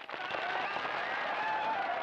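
A crowd cheering and clapping, with a voice or two holding a long shout above the noise.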